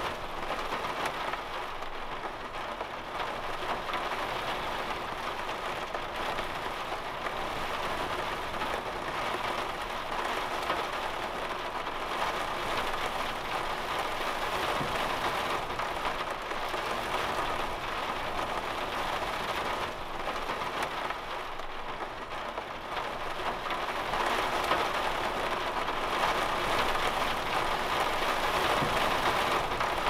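Heavy storm rain falling steadily on a camper van's roof and windows, heard from inside the cabin, getting louder near the end.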